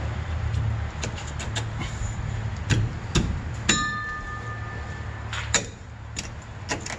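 Metal clicks and clanks as a new rear shock absorber on a Nissan D21 Hardbody pickup is swung onto its mounts and handled with tools, with one sharp metallic strike a little before midway that rings on for over a second. A steady low hum runs underneath.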